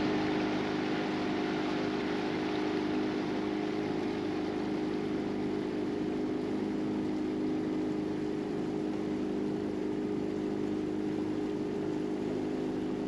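Outboard motor of an inflatable boat running steadily under way, a constant hum over an even hiss.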